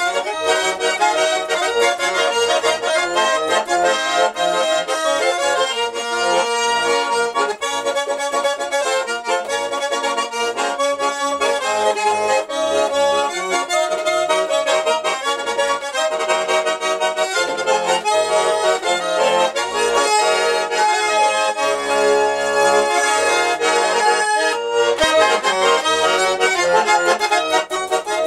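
A garmon, the Russian button accordion, being played: a tune of quick melody notes over bass and chord accompaniment, on an instrument just given a small repair.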